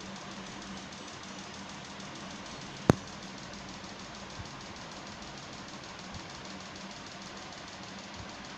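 Steady low hum and hiss with a fast, even pulsing, broken once by a single sharp click about three seconds in.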